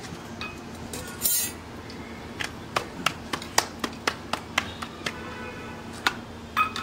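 Hands patting a ball of roti dough flat between the palms: a quick run of about ten sharp slaps, some four a second. A scrape before it, and metal tongs clinking against the iron tawa near the end.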